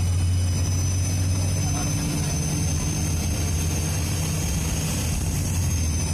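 Dennis Trident 2 double-decker bus's diesel engine running with a low drone, its turbocharger giving a high, steady whistle that shifts slightly in pitch about five and a half seconds in.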